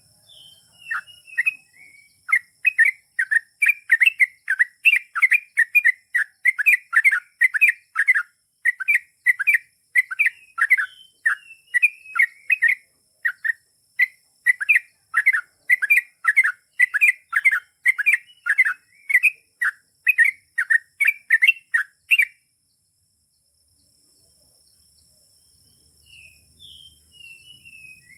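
Yellow-vented bulbul (trucukan) singing a long, continuous run of short chirping notes, about two a second, which breaks off suddenly about 22 seconds in; a few scattered notes return near the end. A faint steady high hiss runs underneath.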